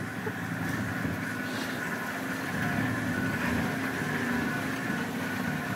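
Open safari vehicle's engine running steadily as the vehicle drives through a shallow water crossing over flat rock.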